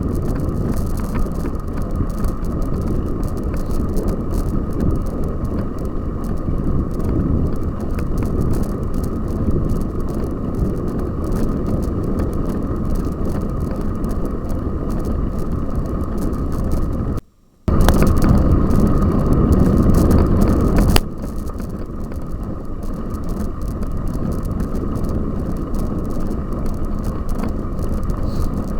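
Cyclocross bike being ridden on the course: a steady rumble of riding noise. About seventeen seconds in it cuts out for a moment, then comes back louder for a few seconds before settling.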